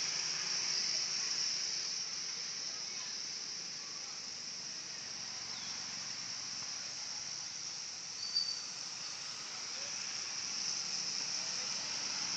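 Recorded lure call of edible-nest swiftlets: a dense, steady high-pitched twittering chatter, with one brief sharper high note about eight seconds in. Such recordings are played to attract swiftlets to a nesting house.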